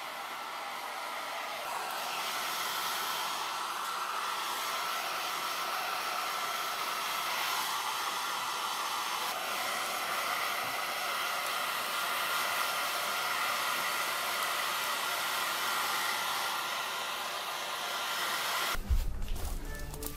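Handheld hair dryer blowing steadily on a puppy's fur, with a faint high whine in its rush of air. Near the end it gives way suddenly to a louder, different sound.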